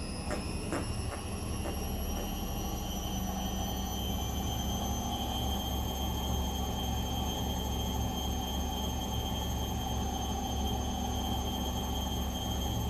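Gorenje washing machine running with a steady rumble, its motor whine rising over the first few seconds and then holding steady as the drum spins up to speed. A few sharp clicks come in the first second or two.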